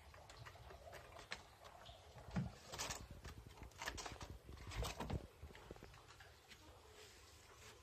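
Faint, irregular taps and scratches of a kitten's paws on a wooden door frame, a few sharper clicks bunched in the middle.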